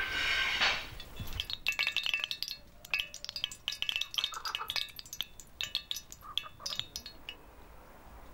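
A quick, irregular run of light clinks, each with a brief chime-like ring, starting about a second and a half in and stopping about a second before the end; a short hiss comes first.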